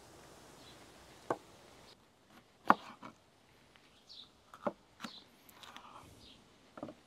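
A few sharp knocks at irregular intervals, the loudest a little under three seconds in: a knife going through bell pepper onto a cutting board. Faint bird chirps in the background.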